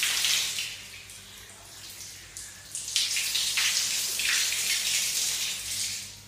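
Tap water running and splashing onto a motorcycle helmet's clear visor as it is rinsed and rubbed by hand. The splashing is loud at first, softer from about a second in, loud again from about three seconds in, and drops near the end as the visor moves in and out of the stream.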